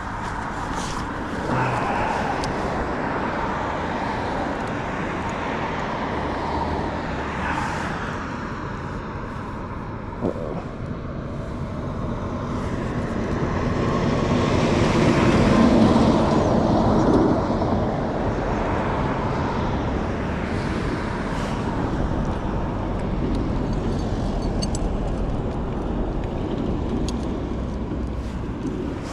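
Outdoor road traffic noise, with a vehicle passing that swells to its loudest about halfway through and then fades.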